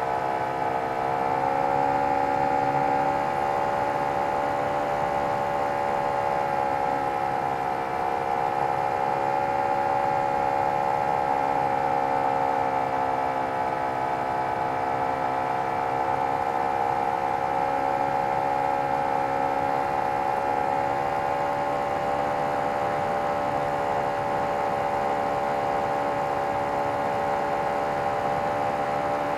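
OS FT-120 Gemini II four-stroke glow twin-cylinder engine on a 25% scale RC airplane, running steadily in flight, its pitch swaying gently up and down.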